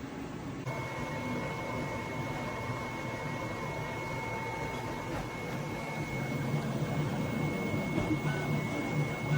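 Flashforge Adventurer 5M 3D printer running: a steady mechanical hum with a thin high whine throughout, and a lower whine for a few seconds.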